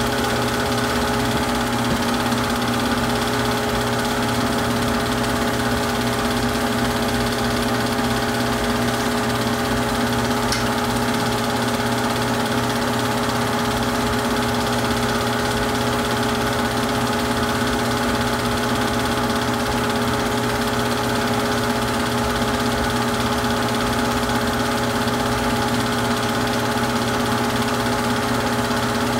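Super 8 film projector running: a steady mechanical hum and whir with several fixed tones that do not change.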